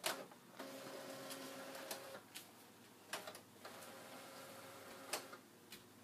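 Brother GX-6750 daisy wheel electronic typewriter running its self-demo: its mechanism hums in two stretches, with scattered sharp clicks and a loud clack at the start and another about five seconds in.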